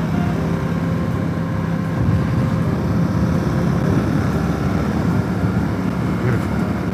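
Motorcycle engine running steadily at highway cruising speed, with wind rushing over the camera.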